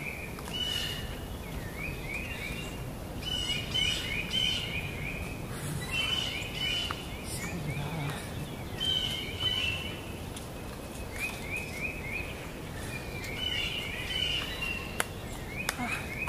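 Forest birds calling: short phrases of quick rising chirps with a brief high whistle, repeated every second or two, over a steady outdoor background hiss.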